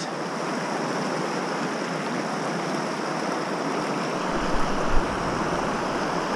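Shallow mountain river rushing steadily over rocks. About four seconds in, a low rumble on the microphone joins it.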